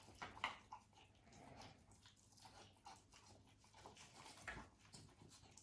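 A beagle puppy chewing and smacking noisily on a burger: faint, irregular wet chomps and bites, a little louder about half a second in and again about a second before the end.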